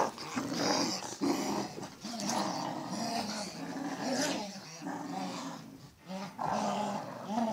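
Cocker spaniels play-growling during a tug-of-war over a rope toy: a run of low growls broken by short pauses, with a brief lull near the end.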